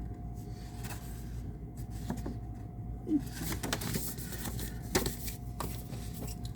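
Hands handling the paper and cardboard contents of a boxed disc set: rustling with scattered light taps and clicks, a couple of slightly louder knocks about three and five seconds in, over a faint steady hum.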